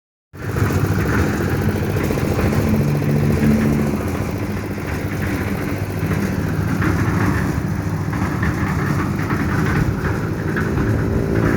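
Hercules concrete mixer's engine running steadily at an even speed.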